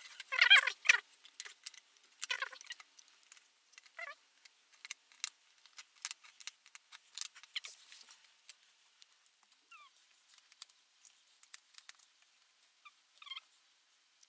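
Cardboard jigsaw puzzle pieces being handled, slid and set down on a tabletop, making a run of light clicks and taps. A few brief high squeaky sounds come in the first few seconds.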